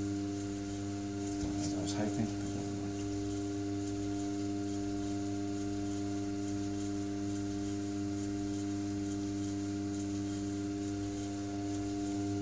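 Electric potter's wheel motor humming steadily as the wheel spins. There are a few light scrapes of a tool on wet clay about two seconds in.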